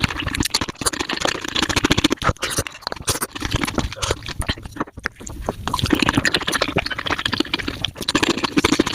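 Mukbang eating sounds of Korean spicy tofu soup sped up five times: slurping and chewing as a dense, rapid run of wet clicks and smacks, with a brief lull about five seconds in.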